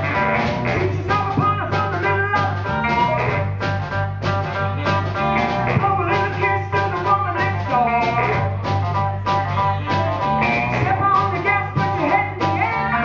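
Live soul-funk band playing with a baritone saxophone, electric bass guitar and drum kit over a steady beat.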